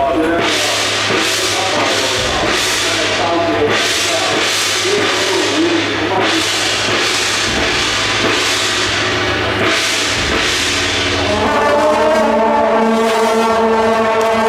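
Procession percussion: cymbals crashing about twice a second over drums. About eleven seconds in, a loud sustained horn-like tone with a steady pitch takes over.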